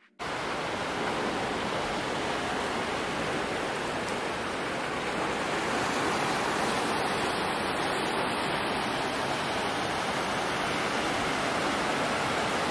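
Ocean surf washing over a rocky shoreline: a steady rushing noise that swells slowly.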